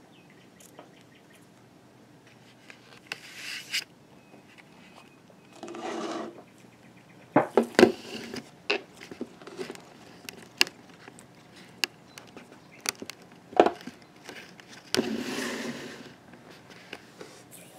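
Light taps, knocks and scrapes of a piece of popcorn being pawed and nudged across a wooden tabletop, scattered and irregular, with a few short brushing sounds of fur rubbing on the wood.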